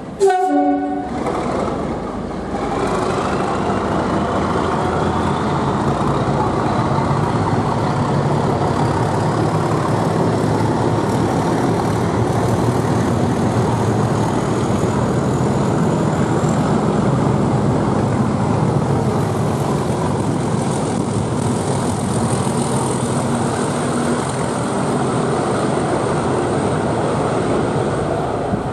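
A short train horn blast, then the loud, steady rumble of a diesel-hauled train of Class 37 locomotives and test coaches passing close by. A thin high whine rises slowly in pitch through the first half of the passing.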